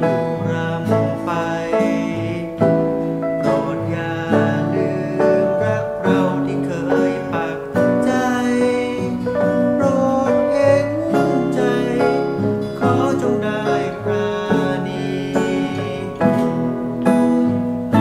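A small band playing a song: strummed guitar with melody lines over it, keeping a steady beat.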